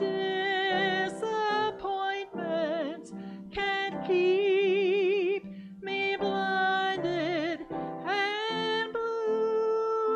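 A solo voice singing a slow gospel song with wide vibrato on long held notes, accompanied by an upright piano.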